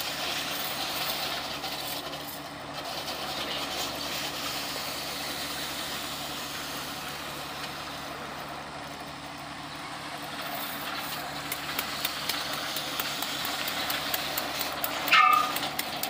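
Canal lining slipform paver running steadily on the job, a continuous machine hum with a hiss over it. A short, high, falling squeal cuts through near the end.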